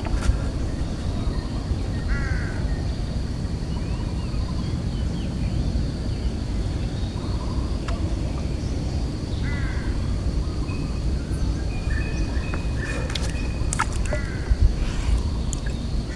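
Crows cawing a few times, about two seconds in and again around ten and thirteen seconds, over a steady low rumble.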